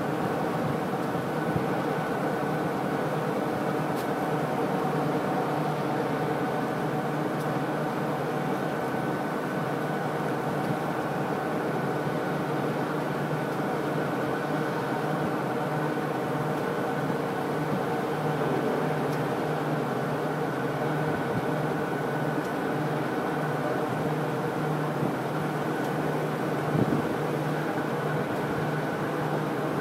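A pair of diesel locomotives running steadily at low throttle as a slow work train crawls across a bridge, a constant engine drone with a fixed pitch. Near the end there is one brief louder clunk.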